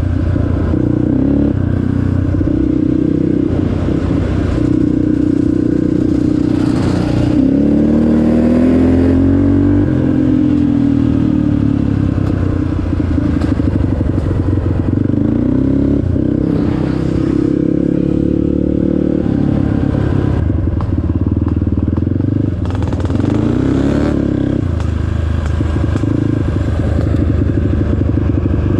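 An off-road vehicle engine running under load, its pitch rising and falling with the throttle several times, with knocks and rattles over it as it is ridden over rough ground.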